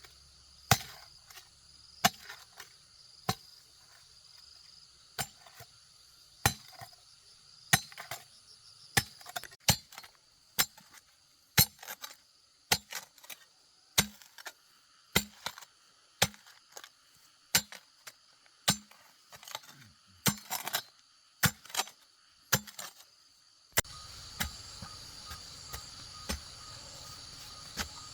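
Repeated sharp strikes of a hand tool on bamboo, about one a second, some coming in quick pairs. Insects chirp steadily in the background from near the end.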